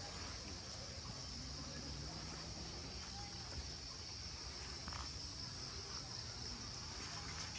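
A steady, high-pitched chorus of insects chirring without a break.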